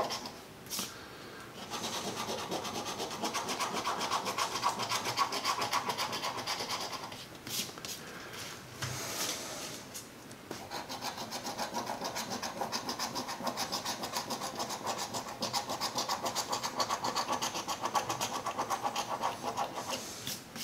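A coin scratching the latex coating off a scratch-off lottery ticket in rapid back-and-forth strokes, pausing for a few seconds partway through before scratching on.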